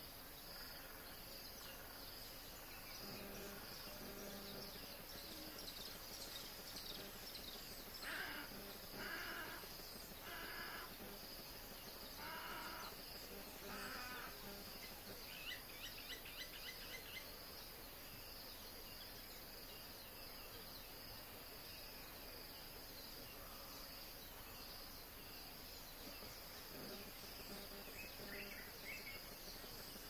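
Faint wetland ambience: a steady, high-pitched drone of insects, with a series of about five short bird calls roughly a second apart about a third of the way in, followed by a quick rapid trill.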